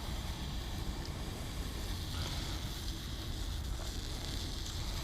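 Wind buffeting the microphone in a steady low rumble, over a steady hiss from the Kelly Kettle's twig fire and water nearing the boil.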